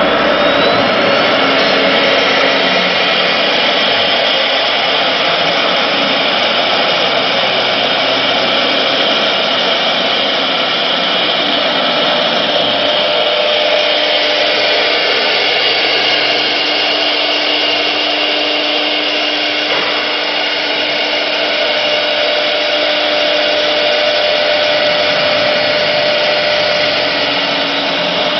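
CNC router spindle running at speed while its bit cuts shapes out of a sheet, giving a loud, steady whine over cutting noise.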